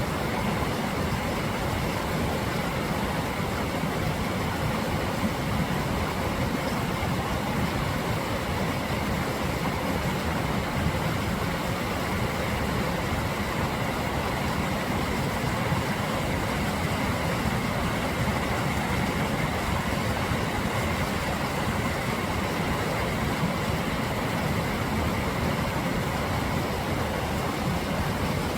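Mountain valley stream flowing in a steady, unbroken rush of water.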